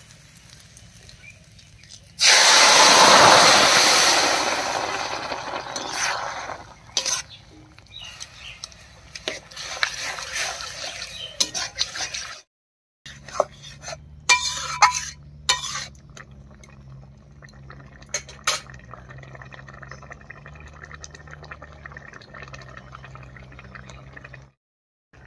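Boiled pumpkin greens, potatoes and jackfruit seeds with their cooking liquid tipped into a kadai of hot mustard oil and spices, hissing loudly about two seconds in and dying away over a few seconds. A spatula then clinks and scrapes in the kadai as the greens are stirred, and later the broth simmers with a soft bubbling over a steady low hum.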